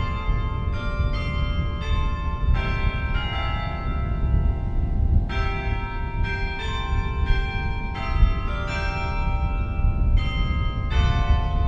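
Carillon music: tuned bells struck one or several at a time, a new note or chord every half second to a second, each ringing on under the next. A steady low rumble runs underneath.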